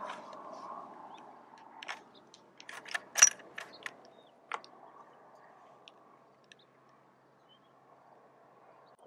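Bolt of a .243 bolt-action hunting rifle being worked to chamber a round: a run of sharp metallic clicks and clacks between about two and four and a half seconds in, the loudest a little after three seconds, over a faint steady hiss.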